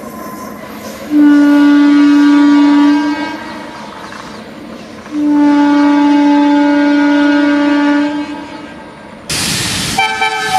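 WAG-9HC electric locomotive sounding its air horn: two long, steady blasts, the second longer than the first, over the low rumble of the moving engine. Near the end the sound switches abruptly to a loud rushing noise.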